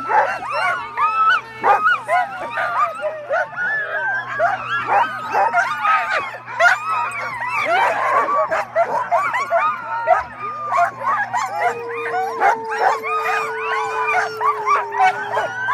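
A team of sled dogs barking, yipping and howling together in a dense, continuous clamour, the excited noise of harnessed dogs eager to run before the sled takes off. One long steady howl is held over the last few seconds.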